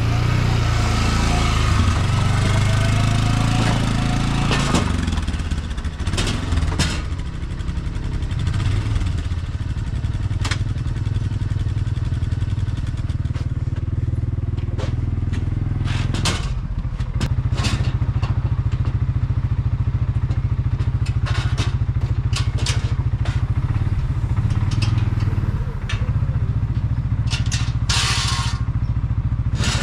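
ATV engine running at low speed while the quad is driven and manoeuvred, its pitch shifting up and down in the first several seconds. Scattered clunks and clicks sound over the engine.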